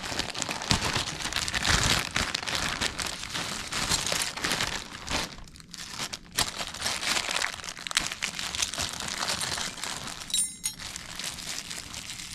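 Plastic packaging crinkling and rustling as it is handled and pulled off a new dishwasher during unpacking, with brief lulls in the handling.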